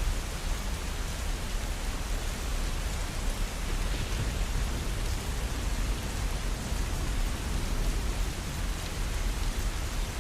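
Steady rainfall: an even, unbroken hiss with a deep low rumble underneath.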